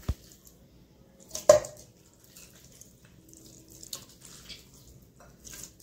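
Pieces of raw mutton being dropped into a pot of oil: a knock at the start and a louder thump about a second and a half in, then faint scattered wet crackles.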